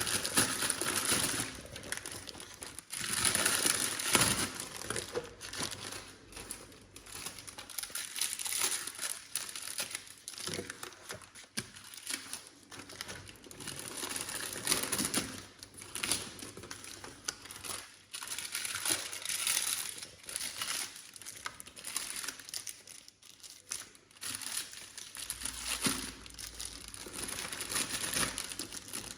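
Plastic snack wrappers, such as chocolate bar packets, crinkling and rustling in irregular bursts as they are handled and packed away, with small clicks and knocks between.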